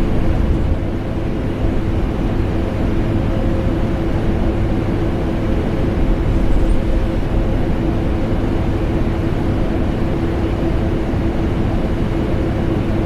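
Vacuum cleaner and air conditioner running together in a continuous, unchanging drone: a steady motor hum over a low rumble and airy hiss.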